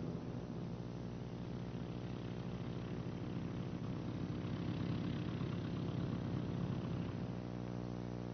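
Light airplane's piston engine running, a steady drone that swells louder and rougher through the middle of the stretch and then settles back.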